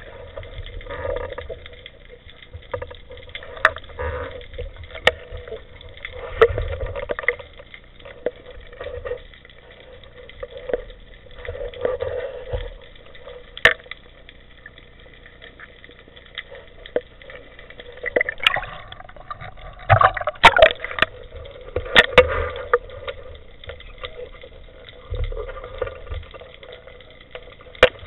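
Muffled underwater sound heard through a camera housing: water swishing, with scattered sharp clicks and knocks that come thickest about two-thirds of the way through.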